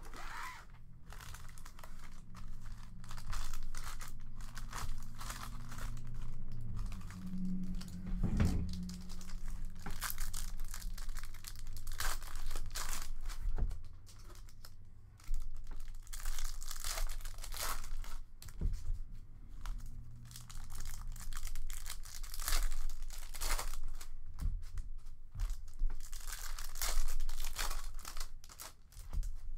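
Foil wrappers of 2019-20 Upper Deck Allure hockey card packs crinkling as they are handled and torn open by hand, in a run of short rustles with a soft thump about eight seconds in.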